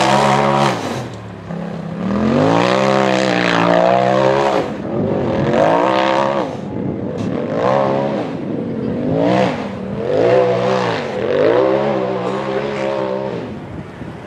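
Side-by-side UTV race engine revving hard as the machine climbs a steep dirt hill. The pitch rises and drops back again and again, about six times.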